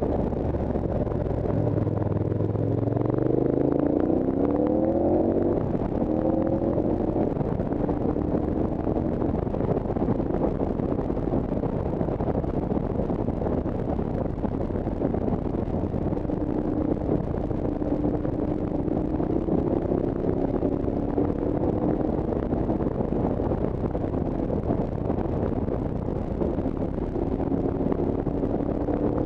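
A vehicle engine running under steady wind rush. About three seconds in its note climbs as it accelerates, then settles to a steadier, lower note that holds to the end.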